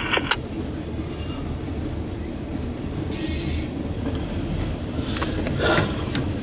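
Loaded CSX coal train's hopper cars rolling past: a steady low rumble of steel wheels on rail, with brief high wheel squeals about one and three seconds in and a few metallic clanks near the end.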